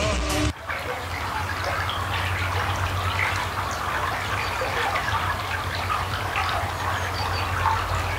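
Rock music cuts off about half a second in, then a steady wash of running water with a low hum underneath.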